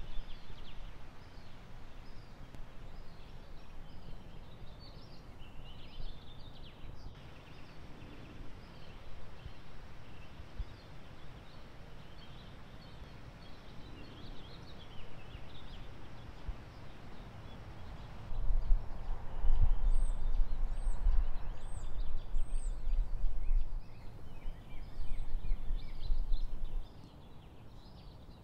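Small birds chirping in scattered short calls, with a run of high, thin chirps in the middle. Wind buffets the microphone as a low rumble that swells about two-thirds of the way in and drops away shortly before the end.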